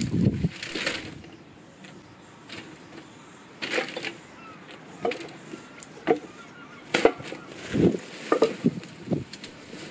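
Irregular knocks, snaps and rustles of dry sticks and plant stems being handled and dropped, with a cluster near the start and a busier run in the last few seconds.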